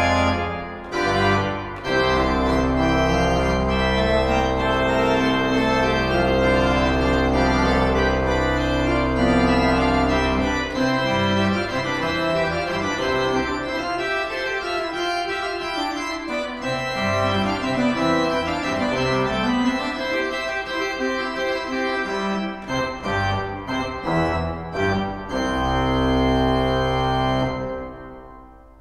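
Pipe organ playing full chords over long-held deep pedal notes, then a busier higher passage and a few short detached chords. It closes on a final held chord that is released near the end and fades out with a brief echo.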